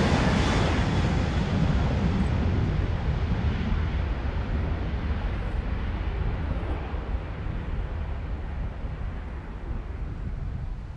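Boeing 737-800 jet engines at take-off thrust: a loud, steady rushing rumble that slowly fades as the departing aircraft moves away.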